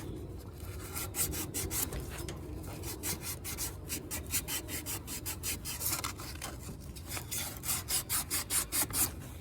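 Hand sanding with sandpaper, rubbed back and forth in repeated scratchy strokes about two to three a second, getting louder and more regular near the end. The surface is being roughened and cleaned so that it grips better.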